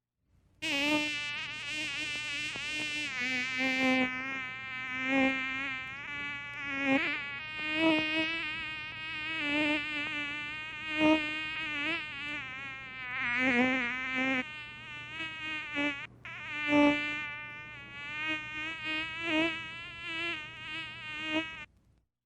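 Mosquito whining in flight, a thin buzz that wavers in pitch and swells and fades as if flying close past the ear. It breaks off briefly about sixteen seconds in.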